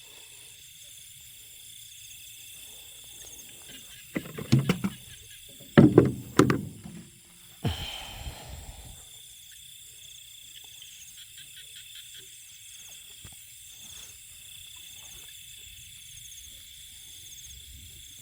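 Steady chirring of crickets and other insects in a rice field, with a few loud short knocks and handling noises about four to seven seconds in and a brief rustle near the middle.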